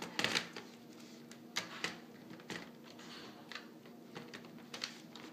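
Scattered plastic clicks and knocks as an HP Pavilion dv6 laptop is handled and its battery pack is snapped into place, with the loudest cluster right at the start.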